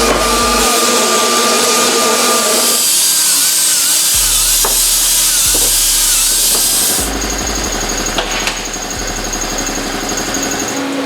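Power tool running steadily on metal with a loud, hissing noise that cuts off about seven seconds in, followed by quieter shop sounds.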